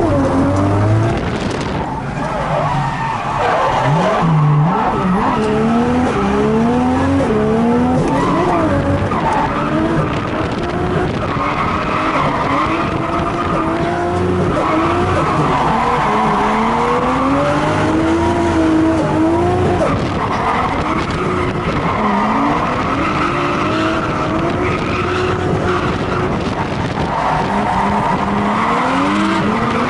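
Nissan Skyline R33's turbocharged RB25DET straight-six heard from inside the cabin while drifting. The revs climb and drop back again and again, and the tyres squeal and skid through the slides.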